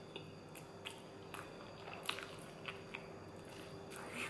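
Close-up chewing of a bite of pork chop, with short sharp mouth clicks now and then, one louder about two seconds in. A faint steady hum runs underneath.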